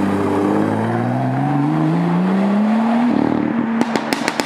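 BMW M2's turbocharged straight-six accelerating hard, its note rising steadily for about three seconds. Then it lifts off, and near the end a rapid string of exhaust pops and crackles starts.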